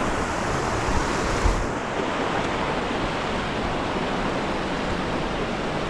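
Steady rushing of fast-flowing river water, with a brief low thump about a second and a half in.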